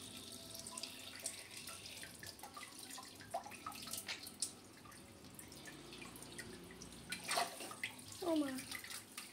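Tap water running through a hose into a bunch of quick-fill water balloons, trickling and dripping into the sink below. Faint, with many small drips.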